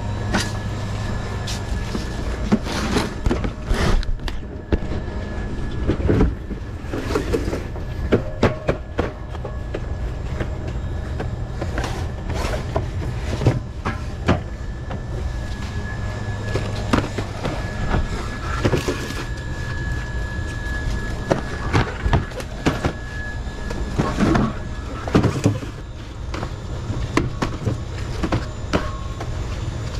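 Loaded metal stocking cart rattling as it rolls over a hard store floor, with scattered knocks and clatters of soda cases being handled, over a steady low hum.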